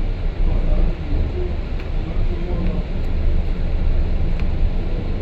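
London double-decker bus on the move, heard from inside: a steady low engine and road rumble, with a few small rattles.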